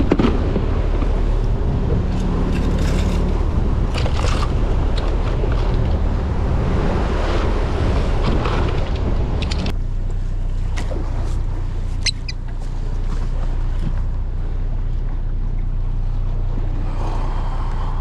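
Wind buffeting the microphone and sea noise over the steady low hum of a boat's engine. The wind noise eases about halfway through, leaving the engine hum and a few scattered clicks.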